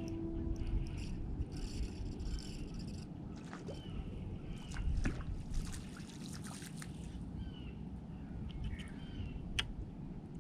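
Water sloshing and splashing in two spells, over a steady low wind rumble, with a few sharp clicks and short high chirps.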